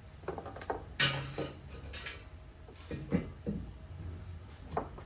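Metal parts of an aftermarket exhaust track pipe clinking and clanking as they are handled and fitted: a string of irregular knocks, the two loudest about a second apart near the start.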